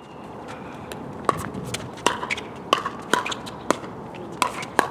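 Pickleball rally: paddles striking the hollow plastic ball in a quick exchange of sharp pops, roughly one every half second, starting about a second in.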